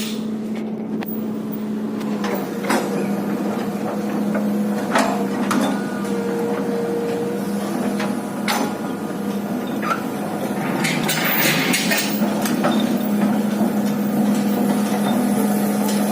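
Excavator running with a steady low engine hum, with scattered metallic clanks and knocks over it.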